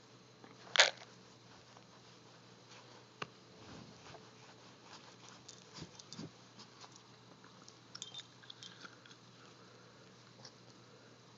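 Boston terrier biting and tugging at a rope toy: small scattered clicks, scuffs and chewing noises of teeth and rope. One short, sharp, loud sound about a second in.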